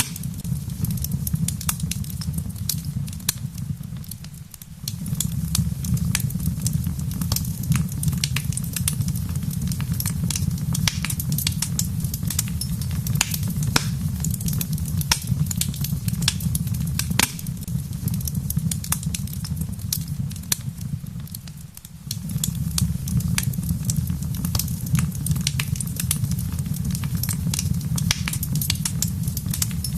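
Wood fire crackling, with frequent sharp pops and snaps over a steady low rumble, and rain pattering. The low rumble briefly drops away twice.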